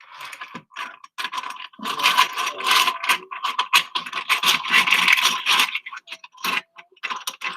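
Lego bricks clattering and scraping against one another as a child rummages through a pile of them to pick some out, a busy run of small plastic clicks that thins out near the end.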